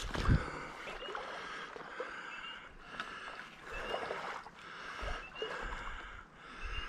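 Footsteps swishing through dry grass and brush, coming in patches about every second. A faint short rising peep repeats every second and a half or so behind them.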